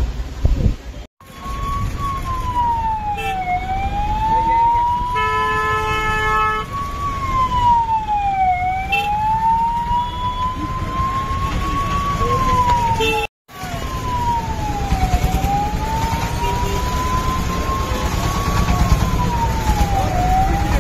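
A police vehicle's siren wailing, its pitch rising slowly and falling quickly about every five seconds, over a low rumble of engines and traffic. A vehicle horn sounds once for about a second and a half, roughly a quarter of the way in, and the sound drops out abruptly twice for a split second.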